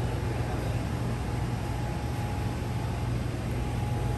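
Steady low mechanical hum with an even hiss and a faint high tone over it, the constant room-machinery drone inside a sub shop, such as ventilation and refrigeration.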